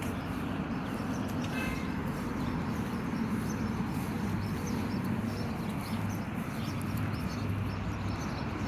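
Steady outdoor background noise with a constant low hum, with a brief high chirp about one and a half seconds in.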